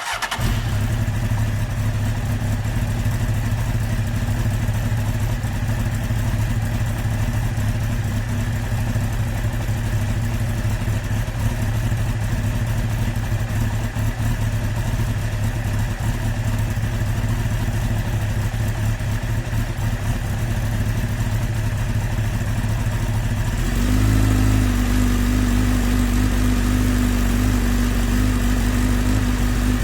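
Motorcycle engine idling steadily. About 24 seconds in it steps up to a slightly higher, louder steady speed and holds there.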